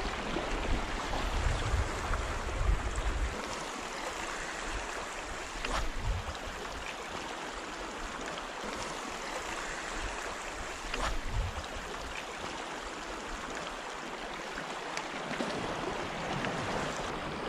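Small sea waves lapping and washing over shoreline rocks: a steady hiss of moving water, with a few brief low rumbles.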